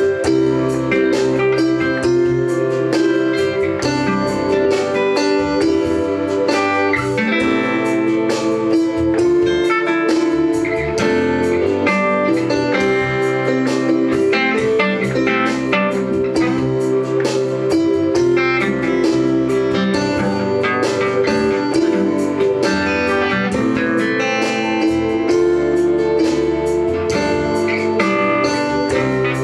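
Live instrumental worship music: acoustic guitar picking a melody over Casio electronic keyboard accompaniment, steady throughout.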